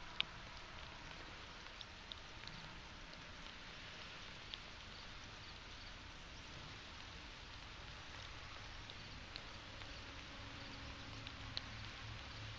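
Faint outdoor background: a steady soft hiss with a few scattered light ticks.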